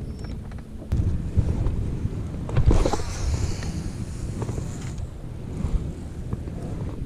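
A cast with a baitcasting rod and reel: the spool whirs with a slightly falling pitch for about two seconds as line pays out, over wind and handling noise on the microphone. A steady electric trolling-motor hum stops about a second in.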